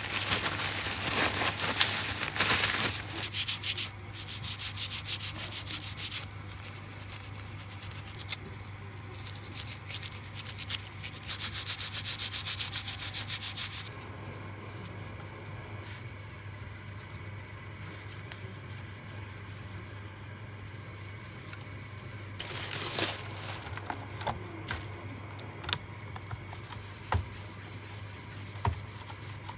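Brisk rubbing: a paper towel wiping a small metal guitar part, then a cloth rubbed in quick back-and-forth strokes over the guitar's glossy finish, loudest just before the halfway point. The second half is quieter, with a few light clicks and taps near the end.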